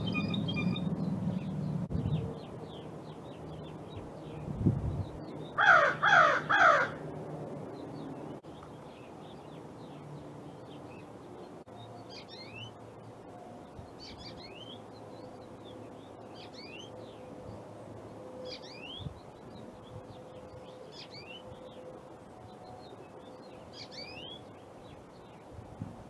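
An American crow caws three times in quick succession about six seconds in, the loudest sound here. Through the second half a finch gives short, high chirps about once a second, over a low rumble that fades out in the first two seconds.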